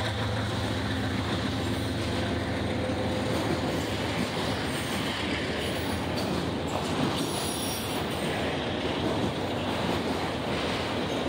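Freight train of enclosed autorack cars rolling past, a steady rumble of steel wheels on rail, with a few faint high wheel squeals about halfway through.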